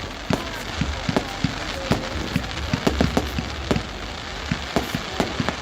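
Fireworks going off: a rapid, irregular run of sharp pops and bangs, several a second, over a steady hiss.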